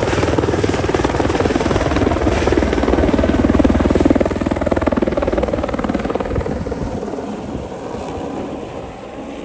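A helicopter flying low past, its rotor beating in a rapid chop that is loudest a few seconds in, then fading as it flies off.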